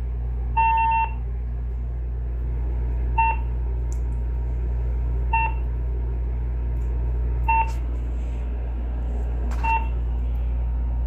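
Uniden EXAI7980 cordless phone's answering machine beeping while it is left recording an outgoing announcement: one longer beep about half a second in, then short single beeps about every two seconds. A steady low hum runs underneath.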